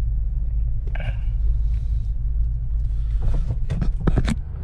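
Steady low rumble of a Lexus SUV's engine and running gear heard from inside the cabin as it moves slowly, with a few brief knocks near the end.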